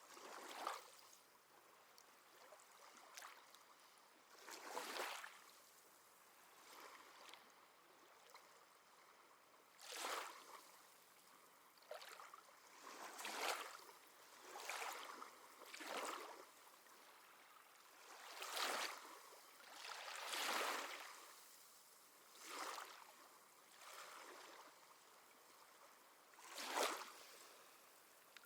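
Small, gentle sea waves lapping and washing on the shore, a short hissing swell about every two seconds at an uneven pace, with no deep rumble.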